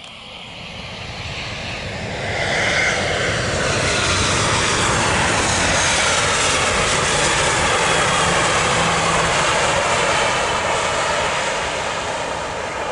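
Twin-engine jet airliner's engines at takeoff power during the takeoff roll, passing close by. The engine noise swells over the first few seconds, holds loud and steady with a whine that falls in pitch as the plane goes past, and eases a little near the end.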